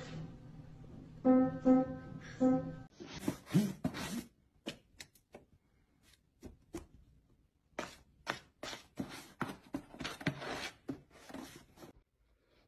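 A cat stepping on the keys of an upright piano sounds a few scattered single notes in the first three seconds. Then come irregular short taps and scratches in clusters, with silent gaps between them.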